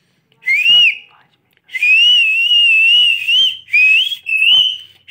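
Pet parrot whistling on cue. First a short whistle that rises and falls, then a long wavering whistle held for about two seconds, then a few short rising whistles.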